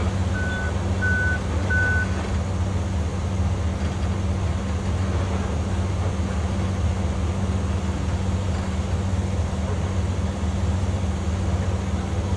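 Forklift reversing alarm beeping about every two-thirds of a second, stopping about two seconds in, over the steady low hum of an idling engine.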